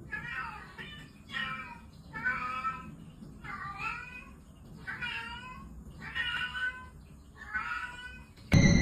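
Domestic cat meowing over and over, about seven short meows spaced roughly a second apart, each bending in pitch. Right at the end a much louder burst of other sound cuts in.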